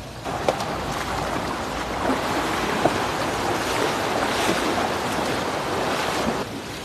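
Legs splashing and churning through shallow, fast-flowing river water as someone wades along, with a few sharper splashes. The splashing stops suddenly near the end.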